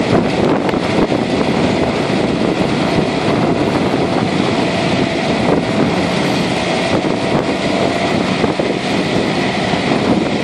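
Tractor running steadily under load as it pulls a Soilmaster independent disc harrow, its discs cutting and throwing dry soil.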